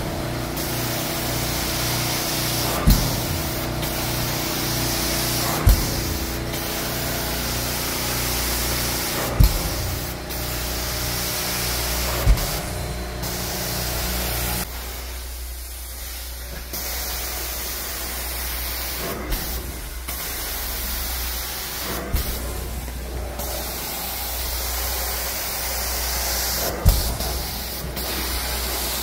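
Hot-water extraction carpet-cleaning wand drawn across carpet, sucking and spraying with a steady hiss of air and water over a low machine hum. A sharp knock comes every few seconds.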